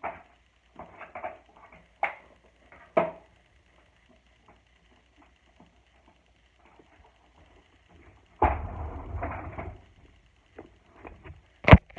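Scattered plastic clicks and knocks from handling a switched-off Eureka Smart Vac upright vacuum, with no motor running. Then a second or so of rustling, shuffling steps on carpet, and one sharp knock near the end.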